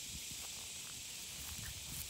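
Steady high hiss of outdoor background ambience with a low rumble underneath.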